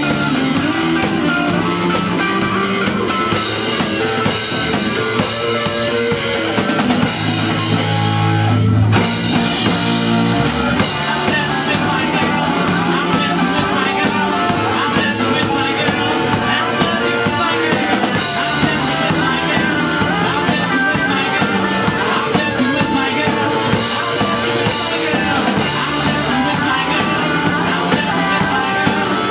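Rock band playing live, with a loud drum kit, guitars and bass. There is a brief break about nine seconds in before the full band carries on.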